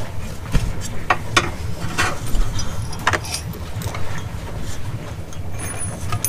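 Irregular sharp metallic clinks of hand tools and hardware on a bolt as the downpipe bracket is fastened under the car, over a steady low hum.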